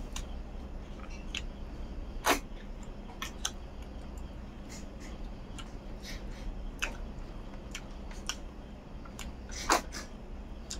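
Close-miked eating sounds: wet mouth clicks and smacks while chewing rice eaten by hand, with two louder smacks, about two seconds in and near the end. A steady low hum runs underneath.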